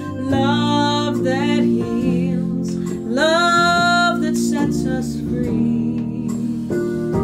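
A woman singing a slow song with vibrato over sustained chords on an electronic keyboard; about three seconds in she slides up into a long held note.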